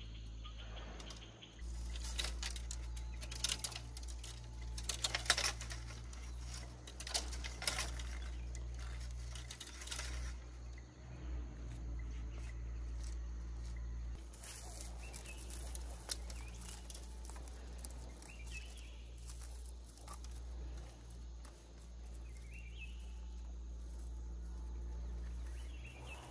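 Dry bamboo poles knocking and rustling as they are handled and tied into a bean trellis, with a run of clicks and taps in the first ten seconds. A steady low hum runs underneath, and faint bird chirps come now and then in the second half.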